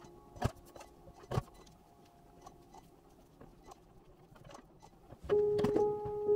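Two sharp chops of a guillotine-style arm paper trimmer cutting through card stock, about a second apart, over faint background music. Louder music with sustained tones comes in near the end.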